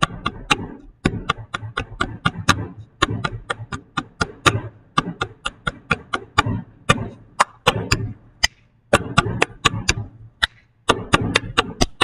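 Hands patting and tapping on a wooden desktop, mixed with hand claps, in a quick repeating pattern of about four hits a second. The runs are broken by short pauses about every two seconds, as the pat-clap-tap sequence repeats.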